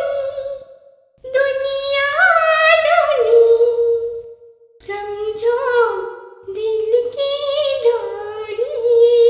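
A woman singing unaccompanied in a high voice: three long, held, gliding phrases with short breaths between them, about a second in and just after four seconds in.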